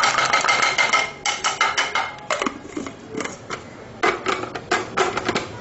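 A spatula scraping and tapping ground spice mix out of a glass grinder jar into a glass bowl: quick runs of knocks and scrapes in several bursts, densest at the start.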